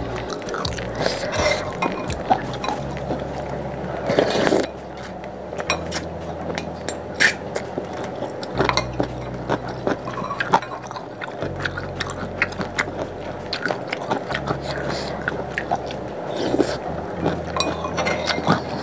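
Eating noodle soup: a metal spoon clinking against a ceramic bowl many times, with slurps of broth and noodles and chewing; the longest, loudest slurp comes about four seconds in.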